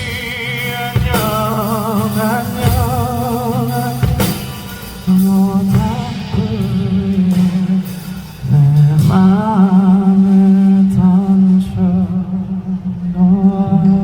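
Live pop-ballad performance: a man's voice singing long held notes with vibrato, without clear words, over acoustic guitar and a drum kit. The drumming thins out about halfway through, leaving mostly voice and guitar.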